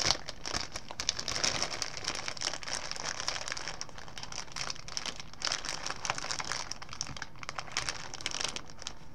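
Clear zip-top plastic bag, with paper towels inside, crinkling and rustling as it is handled, pressed and folded, a rapid, irregular crackle throughout.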